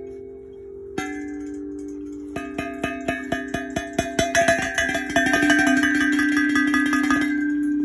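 Playground chimes struck once, then hit in a quick run of about four strikes a second, the ringing tones piling up and sounding on after the strikes stop.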